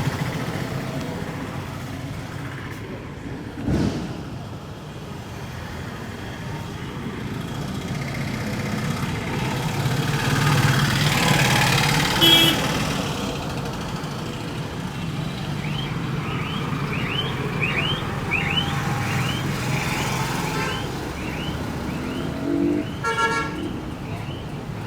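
Street traffic running in the background, with short horn toots about twelve seconds in and again near the end. A single thump comes about four seconds in, and a run of short rising chirps, about three a second, falls between the toots.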